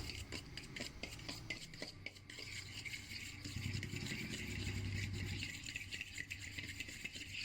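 A spoon stirring a thick, wet marinade paste in a cup: faint, irregular scrapes and light clicks against the cup as the spices are mixed in.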